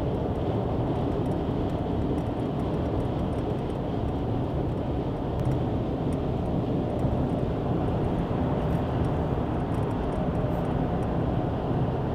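Steady low rumble of a car driving at highway speed, heard from inside the cabin, with no changes.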